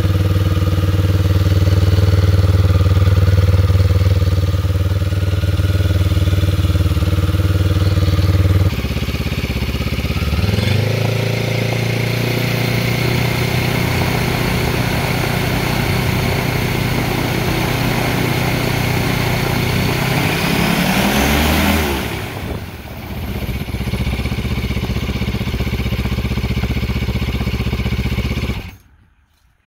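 Yamaha Phazer two-cylinder snowmobile engine, mounted on an ultralight through a gearbox adapter, running and turning the propeller. It runs steadily at first and drops in pitch about nine seconds in. The revs climb again over the next few seconds, dip briefly and recover around twenty-two seconds, and the sound cuts off abruptly near the end.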